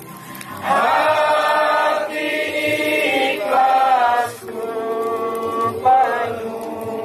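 A woman singing a slow tune in long held notes into a handheld microphone, heard through a portable horn-type loudspeaker. The phrases are broken by short pauses for breath.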